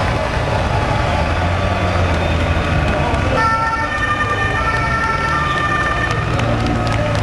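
Street noise at a mass race start: a steady low hum under busy outdoor noise, joined about halfway through by a steady siren-like tone that holds for a few seconds.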